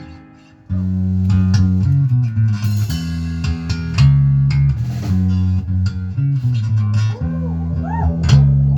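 A band playing live with electric guitar and bass guitar. A ringing chord fades out, and under a second in the bass and guitar come back in with a plucked riff that carries on.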